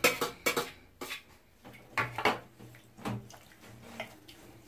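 Wooden spoon stirring boiled small sardines through cold water in a stainless steel pot to rinse them: water sloshing, with several sharp, irregular knocks of the spoon against the pot.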